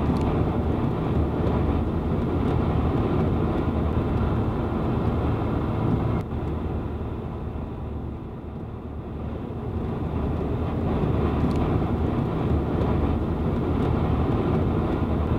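A vehicle driving along a road, with steady engine and road rumble. It eases off about six seconds in, then builds again a few seconds later.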